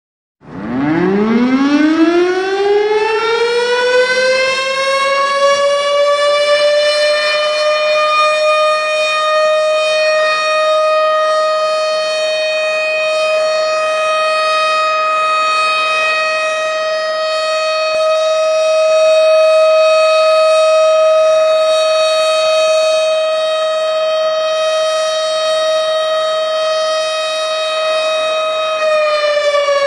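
Ramadan siren of the kind sounded for imsak and for breaking the fast. It starts about half a second in, winds up in pitch over several seconds to one steady wail that holds for more than twenty seconds, then begins to wind down near the end.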